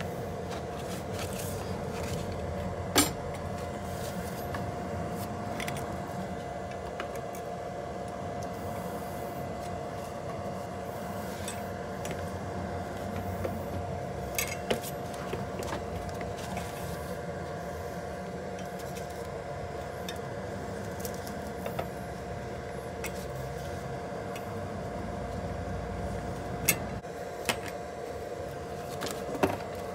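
A few sharp metallic clinks of tools and parts being handled while a scooter wheel is refitted, the loudest about three seconds in, a pair midway and several near the end, over a steady background hum.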